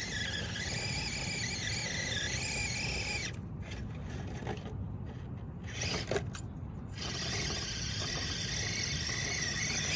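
Axial SCX24 micro RC crawler's small electric motor and gears whining under throttle, the pitch wavering as it works at a climb. The whine drops out about three seconds in, a few light clicks follow, and it picks up again about seven seconds in.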